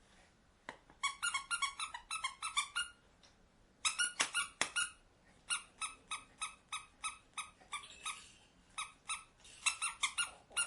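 Squeaky rubber toy squeezed over and over, short same-pitched squeaks about five or six a second, in four bursts with brief pauses between them, and a few light knocks.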